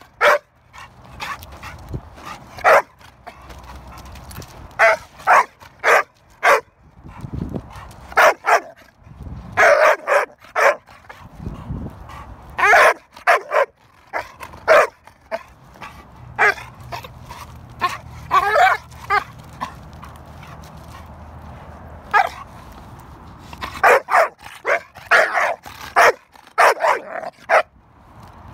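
Black American Pit Bull Terrier barking in short, loud bouts, several barks in quick succession, then a pause, over and over.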